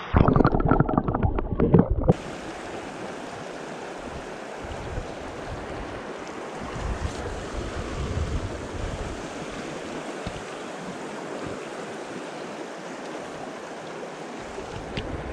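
Steady rush of flowing river water, with a loud, muffled rumble over the first two seconds.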